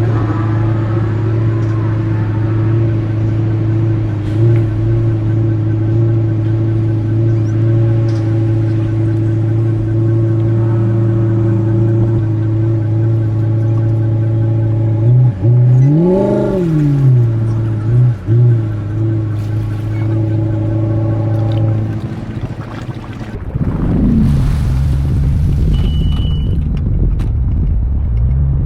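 Jet ski engine running at a steady pitch, revving up and back down once about halfway through, then giving way to a rougher, lower rumble near the end.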